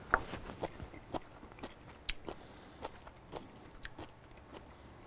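Faint mouth sounds of someone chewing sauerkraut boiled in beer, with soft irregular crunching clicks.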